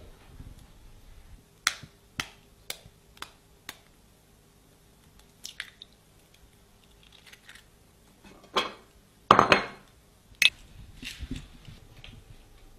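Crockery being handled on a table: a run of five sharp clinks about half a second apart, then a louder clatter with a short rough scrape about two-thirds of the way through, and one more sharp clink.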